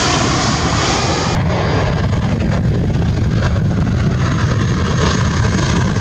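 Twin-engine jet airliner on landing approach passing close overhead: a steady, loud engine rumble with a hissing roar on top. The high hiss drops away suddenly about a second and a half in, leaving mostly the low rumble.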